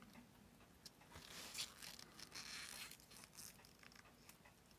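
Near silence, with a few faint soft rustles and scrapes from about one to three seconds in: tweezers and nitrile-gloved fingers handling a watch movement.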